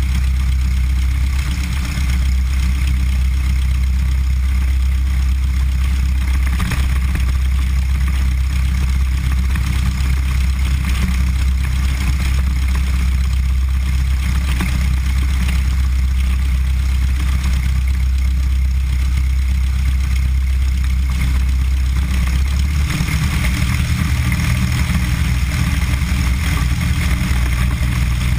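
Cessna 172's piston engine and propeller running at low power as the plane rolls along the runway, heard from a camera mounted outside beside the cowling. The engine note shifts and grows slightly fuller about three-quarters of the way through.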